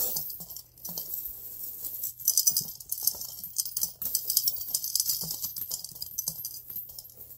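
Coins, mostly pennies, dropping one after another through the slot of a piggy bank and clinking on the coins inside, in quick irregular clicks, with coins being picked up off the carpet.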